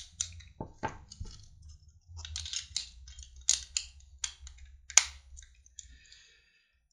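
Plastic clicks and small rattles of a pocket digital voice recorder being handled as its battery cover is opened and two small batteries are taken out, with a sharp snap about five seconds in.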